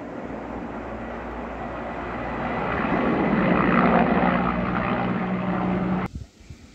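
Rosenbauer FOX 4 portable fire pump running steadily: an engine drone with a rushing noise over it, growing louder toward the middle. It cuts off abruptly about six seconds in, leaving a faint hiss.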